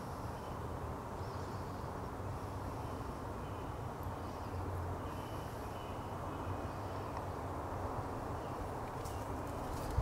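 Steady outdoor background noise with a low rumble, and faint short high bird calls every second or two.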